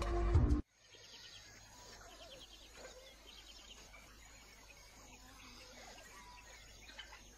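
Background music cuts off about half a second in, leaving faint savanna dawn ambience: scattered short bird chirps over a quiet, steady hiss.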